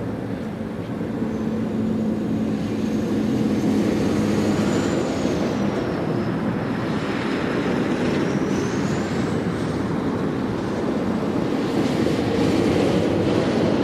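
Heavy lorries driving off the ferry, a steady engine and tyre drone with a low engine note for the first few seconds and a faint high whine midway.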